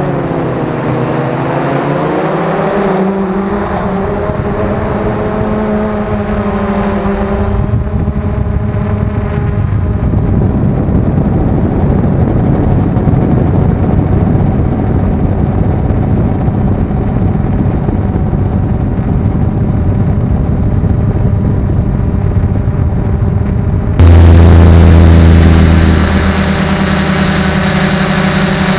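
DJI quadcopter's motors and propellers running in flight, heard from the camera on board: a loud buzzing drone whose tones sag and then rise in pitch over the first few seconds before settling into a steadier whir. Near the end the sound jumps suddenly louder, with a deeper steady hum.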